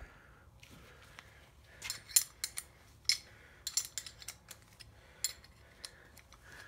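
Metal hand tools being handled and set down: a quick series of sharp clinks and clatters, loudest about two seconds in, thinning out after about five seconds.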